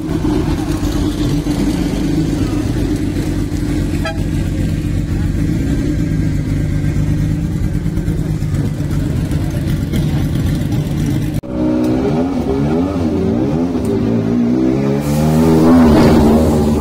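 Lancia Stratos rally car's V6 engine running steadily at low revs. After a sudden cut about eleven seconds in, a Ford Sierra Cosworth's turbocharged four-cylinder is blipped up and down repeatedly, loudest near the end.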